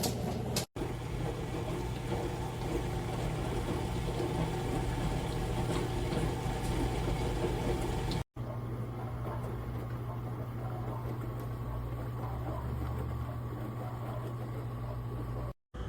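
Tabletop dishwasher running: a steady motor hum with water spraying and sloshing inside. The sound drops out for an instant about a second in, around the middle and near the end.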